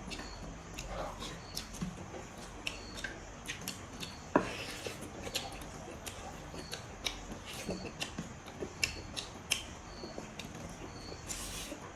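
A person chewing meat close to the microphone: a run of irregular short mouth clicks, with one sharper click a little over four seconds in.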